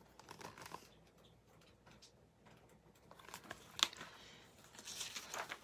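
Faint rustling and light taps of a picture book being handled and its pages turned, with one sharper click about four seconds in.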